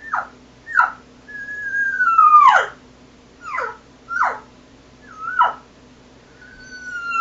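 Cow elk call blown to imitate a pleading cow elk: short mews that fall sharply in pitch, and two drawn-out calls that hold a steady pitch and then drop away, one about a second and a half in and one starting near the end.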